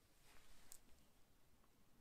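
Faint swish of stitching thread being drawn through the pricked holes in leather, with a small tick just before the middle.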